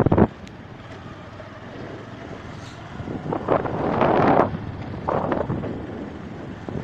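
Wind rushing over the microphone, swelling in gusts about three to four seconds in and again near five seconds.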